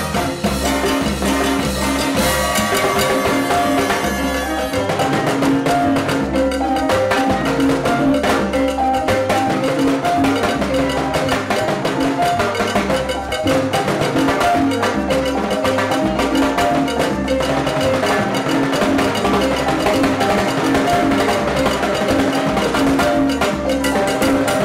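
A salsa orchestra playing live, with the percussion to the fore: timbales, congas and bongos over a repeating bass line. The music is dense and keeps going without a break.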